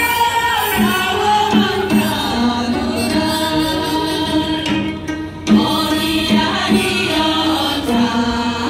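A group of singers singing together in chorus with instrumental accompaniment from a traditional Korean ensemble. The music thins briefly about five seconds in, then carries on.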